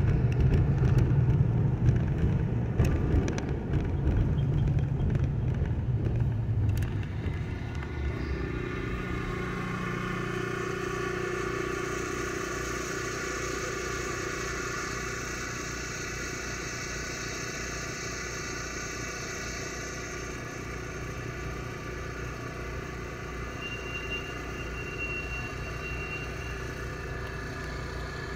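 Car cabin sound while driving: low road and engine rumble. About seven or eight seconds in it eases off as the car slows and stops, leaving a steadier, quieter hum of the car idling.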